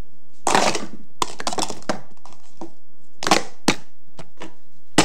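Plastic speed-stacking cups clattering and clacking on a table as a cup pyramid is stacked and collapsed during a stacking cycle. A rattle about half a second in is followed by a run of quick clicks, then separate sharp clacks, the last one at the very end.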